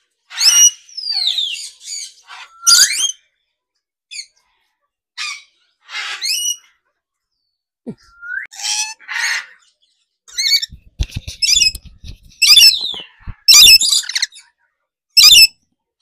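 Parrots squawking and screeching in short, loud, irregular calls, some sliding down in pitch. In the second half there is a run of low knocks and rattles.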